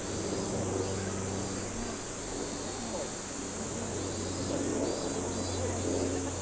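Steady, high-pitched drone of insects calling, with faint voices of people talking in the background and a low steady hum.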